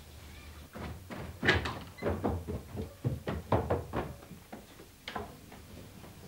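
Footsteps and thuds on a wooden staircase: a run of irregular knocks, the loudest about a second and a half in, dying away after about five seconds.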